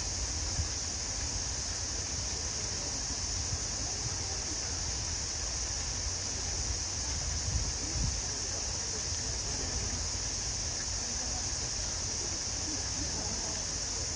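Steady high insect drone over a low background rumble, with a faint brief rustle of bamboo grass dragged by an Asian elephant about eight seconds in.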